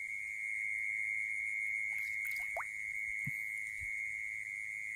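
Steady, unbroken high-pitched trill of night insects, with a few faint short ticks and chirps about two to three seconds in.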